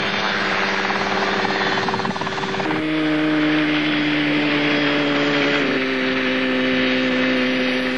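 Revolution Mini 500 single-seat homebuilt helicopter running on the ground, warming up: a steady buzzing engine-and-rotor drone. Its pitch drops a little in two sudden steps, about a third and two-thirds of the way through.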